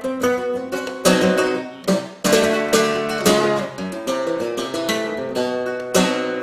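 Nylon-string flamenco guitar played with the fingers in the por medio key: plucked single notes broken by loud strummed chords about one, two, three and six seconds in.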